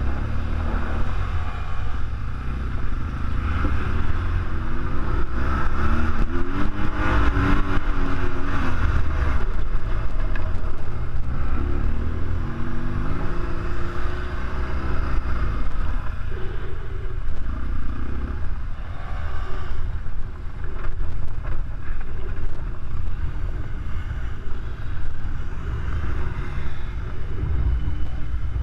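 BMW R1200GS Adventure's boxer twin engine under way on a gravel track, its revs rising and falling twice as the rider accelerates and eases off, over heavy wind rumble on the microphone.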